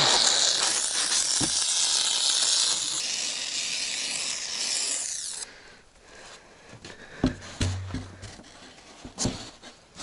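Can of polyurethane mounting foam hissing steadily as foam is sprayed into the joints between polystyrene insulation boards, stopping abruptly about five and a half seconds in. A few light knocks follow.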